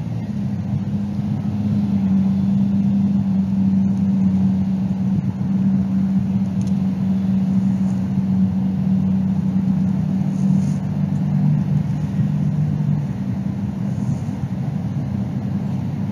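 A steady low engine hum over a rumble, with a second, lower tone joining for a few seconds near the end.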